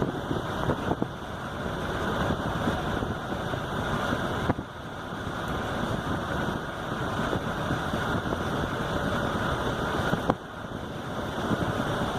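Car driving at highway speed: steady road, tyre and wind noise, with brief dips about four and ten seconds in.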